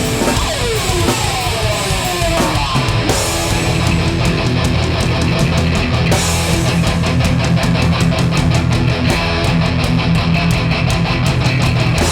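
Hardcore punk band playing live without vocals: distorted electric guitars and bass, with several falling guitar glides in the first few seconds, then fast, even drumming under the guitars from about three seconds in.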